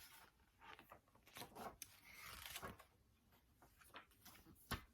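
Near silence with faint rustling and handling noise, and one sharper click near the end.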